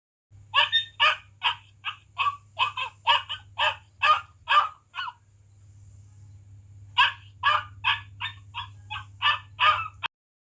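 A farm poultry bird calling in a rapid run of short harsh calls, about two to three a second, breaking off about five seconds in and starting again about two seconds later. A steady low hum runs beneath.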